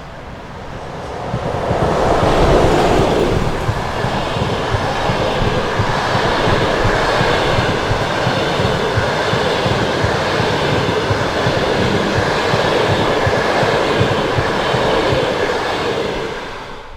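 Passenger train passing close by at speed, a steady rush and rumble of wheels on rails. It swells over the first couple of seconds, holds, then falls away near the end.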